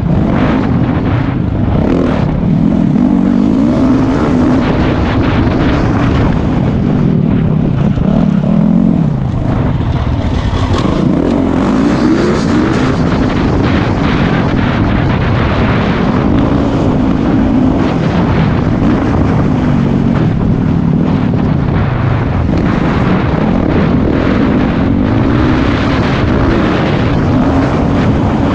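Motocross bike engine at race pace, its pitch rising and falling as the rider works the throttle and gears. It is heard up close from a helmet-mounted camera.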